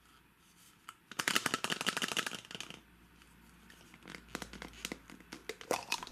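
Hard plastic halves of a Tomy Winnie the Pooh Hide Inside stacking cup clicking as they are twisted and pulled apart: a fast run of clicks about a second in, then scattered clicks.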